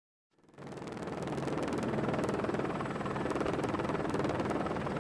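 Steady helicopter engine and rotor noise that comes in about half a second in, after a moment of silence.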